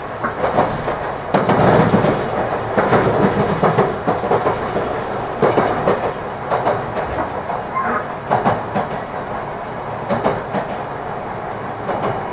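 Inside a running JR Kyushu 813 series electric train car: a steady rolling rumble of wheels on rail with irregular clattering over rail joints.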